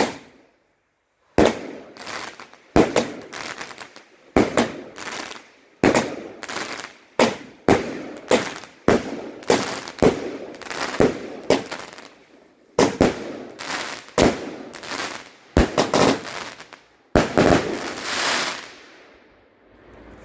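Bonfireworks Whispering Waves 16-shot firework cake firing its shots in turn, about one every second and a half. Each shot is a sharp launch thump followed by the noisy break of its effect overhead, and the last break near the end lasts longer before the volley dies away.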